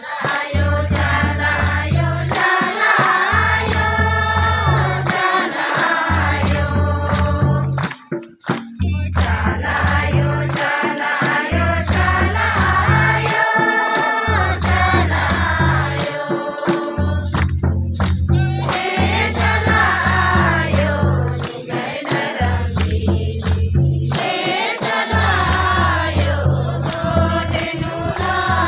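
Devotional folk song (bhajan) sung by several voices over a steady, repeating drum beat, with a shaker or rattle ticking evenly and fast throughout.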